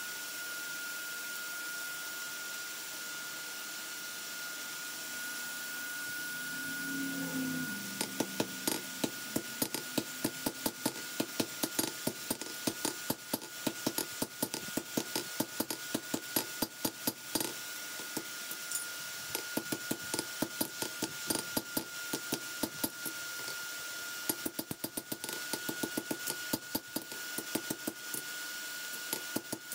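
Hand hammer forging a knife blade on a steel anvil: a fast run of sharp ringing blows, about three a second, starting about eight seconds in, with a brief break near the end, over a steady hiss.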